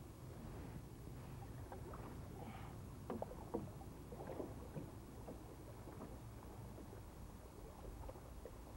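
Faint splashes and drips of a canoe paddle worked through calm water as a solo canoe spins in a cross reverse wedge, over a low steady rumble.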